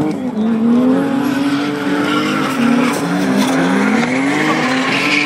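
Drift cars sliding sideways: an engine revving high, its pitch dipping and climbing again several times as the throttle is worked, over the hiss and squeal of tyres sliding on tarmac, which grows stronger about two seconds in.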